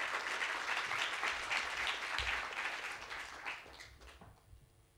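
Audience applauding, the clapping dying away over the last second or two.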